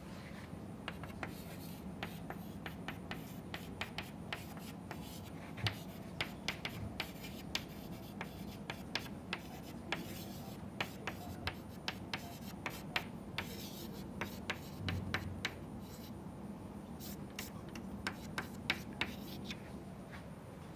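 Chalk writing on a chalkboard: many quick, irregular taps of the chalk with short scratchy strokes between them.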